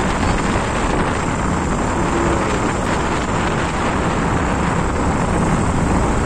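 Steady rush of wind on the microphone and road noise from a moving vehicle driving along a country road.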